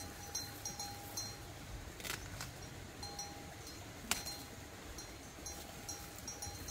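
Ears of corn snapped off their stalks by hand, giving a sharp crack about 2 s in and a louder one about 4 s in, with rustling of corn leaves. Repeated short high chirps sound throughout in the background.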